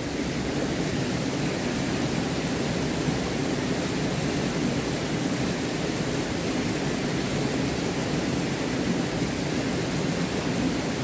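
Steady rushing of running water from a small mountain stream and its little waterfall.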